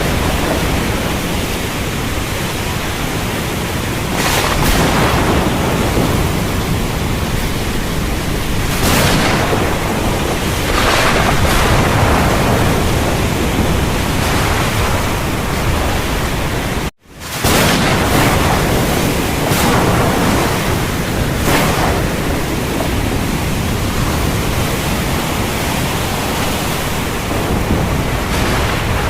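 Heavy rain with a low rumble, a dense steady wash of noise that swells louder every few seconds. About two-thirds of the way through, the sound cuts out for a split second and then comes straight back.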